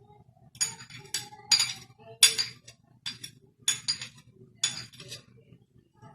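Spoon clinking and scraping against a mixing bowl as sugar is added to eggs: about eight short, sharp clinks, unevenly spaced over several seconds.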